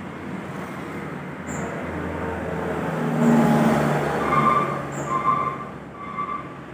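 Street traffic passing close by: a truck goes by, loudest about halfway through, with motorbikes on the road. Near the end a short tone sounds about four times.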